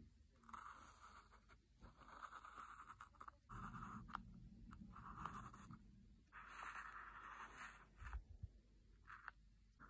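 Paint marker's tip scratching across a phone case in a series of short drawing strokes with brief pauses between them.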